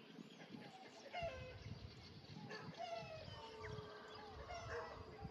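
Several birds calling at once in a rural soundscape: many short, overlapping calls, a number of them sliding down in pitch, with a steady held note joining in about four seconds in.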